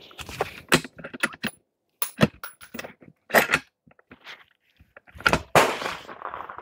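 Bolt of a Howa 1500 bolt-action rifle being worked and handled: a quick series of sharp metallic clicks and clacks, several in the first three seconds and a louder pair about five and a half seconds in.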